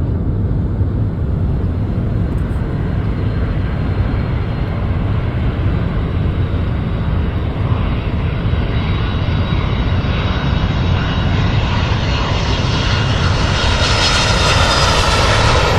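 Airplane engine noise: a steady low rumble that grows louder and brighter over the last few seconds as the aircraft approaches.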